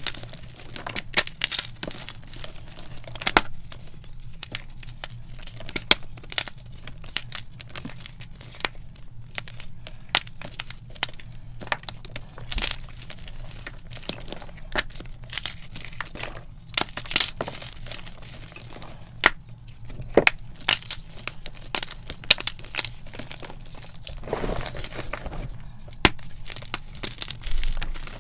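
Gym chalk crushed by hand, chunks and powder squeezed and crumbled in the fingers: a dense, irregular run of crisp crunches and crackles, with one longer, deeper crunch near the end.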